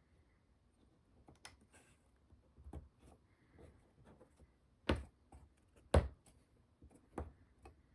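Light clicks and taps of small wooden model-kit parts being handled on a work surface, with two sharper knocks about five and six seconds in.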